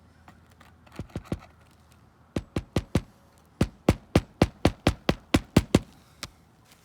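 Hammer driving roofing nails to fasten a replacement roof shingle: a few quick taps, then a steady run of about four sharp blows a second.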